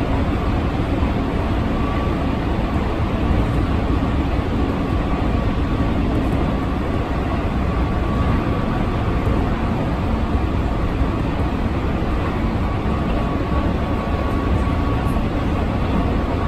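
Keihan Electric Railway limited express train running at speed, heard from inside the carriage: a steady rumble of wheels on rail, with a faint high whine that comes and goes.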